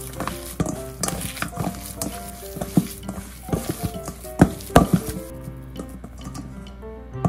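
A hand kneading raw ground-meat gyoza filling in a stainless steel bowl: irregular wet squishing and slapping, with a couple of louder slaps a little over four seconds in, as the mixture is worked until sticky. Background music plays throughout.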